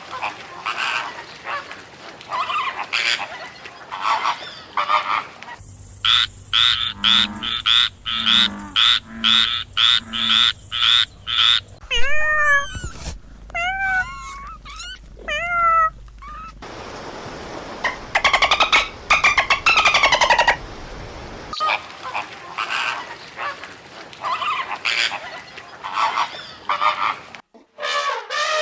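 A run of short recordings of different animals calling, one after another, each cut off abruptly after a few seconds. In the middle stretch a bird sings in short, falling whistled notes.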